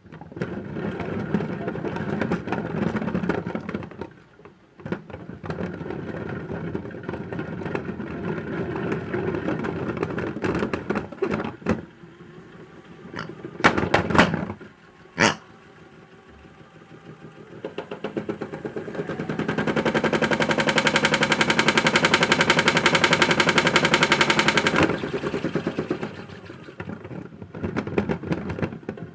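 Toy washing machine running with small plastic Stikeez figures rattling in its drum; a loud, fast, even rattle sets in partway through and runs for about seven seconds before dropping away.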